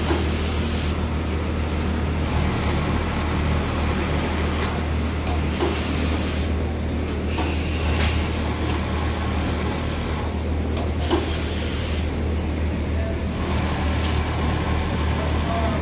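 Steady low machinery hum and air noise of a garment factory floor, with scattered irregular clicks and knocks.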